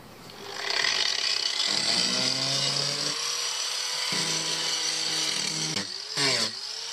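A handheld power tool spins up to a steady high whine and grinds into the boat's fibreglass and wood transom. Near the end its pitch dips and recovers several times as it bogs under the load of the cut.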